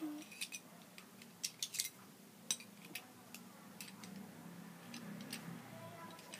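Small plastic game blocks clicking and tapping against each other as they are pulled from and set on a stacking tower: scattered faint sharp clicks, several in quick succession in the first two seconds and a few more later.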